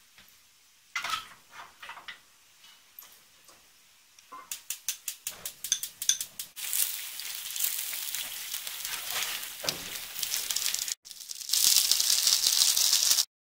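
A metal spoon scraping and clinking against a ceramic bowl as dressing is spooned over shredded cabbage, with a quick run of taps about halfway, then a steady hiss. Near the end, gyoza sizzle loudly as they fry in a pan.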